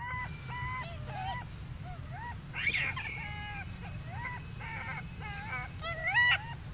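Rhesus macaque calls: a run of short, high-pitched coos, about two a second, with two louder, higher calls about 2.5 s in and near the end, over a steady low rumble.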